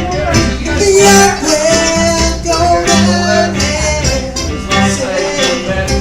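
Live acoustic jam band playing a country/bluegrass tune, with strummed guitar, a walking bass line and a held melody line above.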